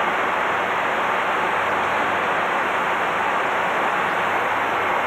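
Steady rushing noise on the flight deck of a KC-135 tanker in flight: airflow and engine noise, even and unbroken.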